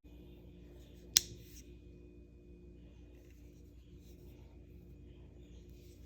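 One sharp click about a second in, over a steady low hum.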